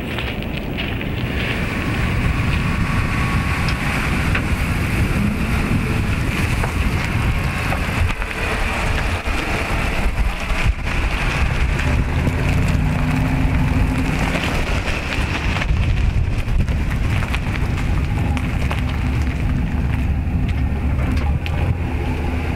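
Ford 7.3-litre naturally aspirated V8 of a Super Duty pickup running, heard as a steady low rumble under a loud rushing noise of wind on the microphone; the engine's low hum comes through more plainly in the second half.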